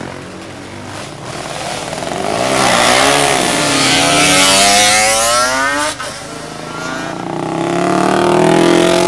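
Vintage racing motorcycle engines revving hard through a bend. The pitch swings up and down with the throttle and climbs as the bike accelerates away. It breaks off about six seconds in, then an engine rises again near the end.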